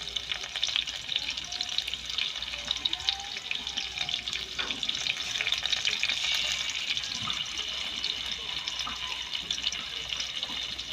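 Frying pan sizzling steadily with many small crackles as tomato paste cooks in hot oil.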